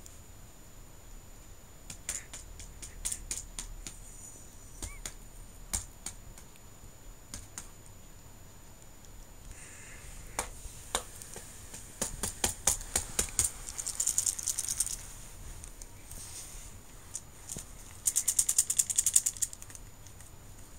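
Soroban (abacus) beads rattling inside a zippered cloth case as it is moved, in scattered bursts of quick clicks. The loudest, fastest rattle comes near the end as the case is shaken.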